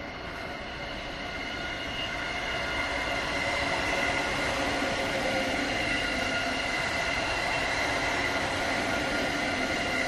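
JR East E231-series Tokaido Line electric train approaching and running past, growing louder over the first few seconds and then holding steady. Several steady high whining tones sound over the running rumble.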